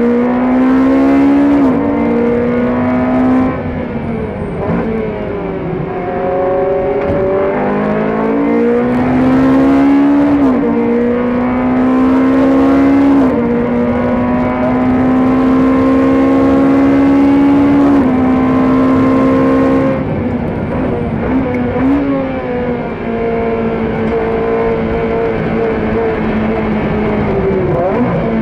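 GT3 race car's engine heard from the cockpit at racing speed: the revs climb and drop back at each upshift, hold high and steady for several seconds mid-way, then fall away with downshifts as the car slows for corners.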